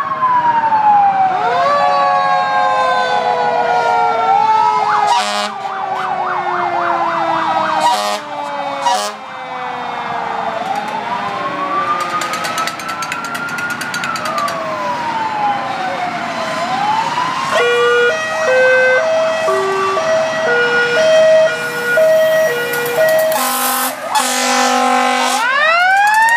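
Several fire truck sirens sounding over one another: long wails that sweep up and down, quick warbling yelps, and from about two-thirds in a siren stepping back and forth between fixed tones. Near the end a siren winds up again.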